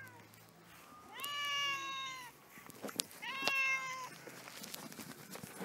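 Domestic cat meowing twice: a long meow about a second in, its pitch sinking slightly, then a shorter meow about three and a half seconds in.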